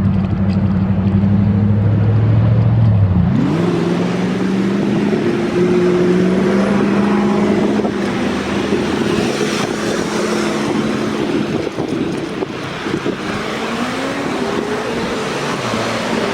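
Road traffic: motor vehicles driving past, with a steady engine hum that changes abruptly about three seconds in, then tyre and road noise and an engine pitch rising later on.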